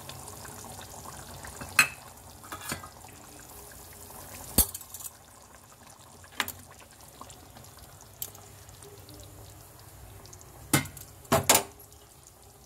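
Matar paneer gravy simmering in a non-stick pan with a steady soft bubbling hiss, while a metal spoon stirs it and clinks sharply against the pan several times, twice in quick succession near the end.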